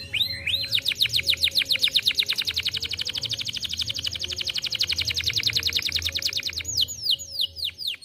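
Domestic canary singing a long, very fast trill of rapidly repeated high notes, breaking near the end into a few slower, falling notes.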